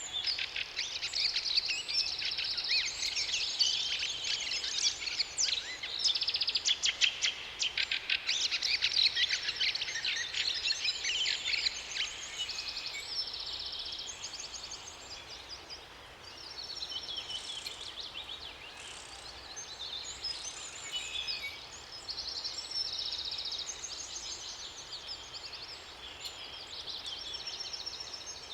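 Several songbirds singing at once: rapid chirps and trills overlapping densely for the first twelve seconds or so, then thinning to separate repeated phrases, over a faint steady background noise.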